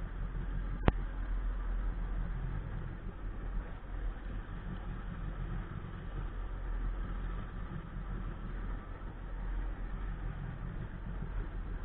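Sea-Doo personal watercraft engine idling with a steady low rumble, with a single sharp click about a second in.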